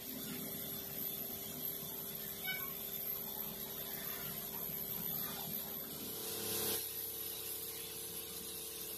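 Air spray gun spraying a scooter body panel: a soft hiss over a steady hum, with a brief louder hiss about six and a half seconds in.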